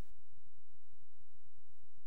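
Near silence, with only a faint low flutter.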